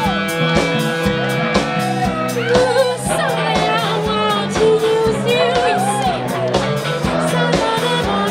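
Live rock band playing a song: a singer over guitar, bass and a steady drum beat.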